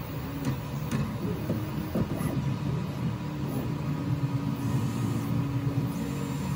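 Prusa i3 MK3S+ 3D printer running at the start of a print: fans humming and stepper motors whirring as the print head travels into position before bed probing, with a steady whine coming in a little past halfway.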